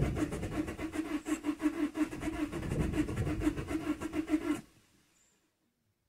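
Vauxhall Combo's common-rail diesel engine cranking on the starter with a rhythmic beat of compression strokes, trying to catch but not starting. The cranking stops abruptly about four and a half seconds in.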